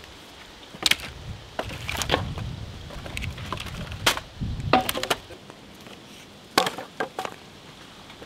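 Dry firewood logs knocking and clattering against each other as they are laid onto a pile, about half a dozen sharp wooden knocks spread a second or so apart.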